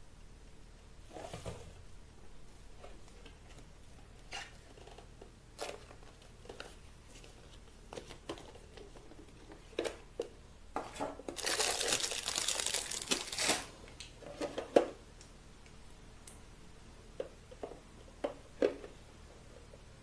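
Handling noises: scattered light knocks and clicks, with a louder stretch of crinkling and rustling lasting about two seconds past the middle.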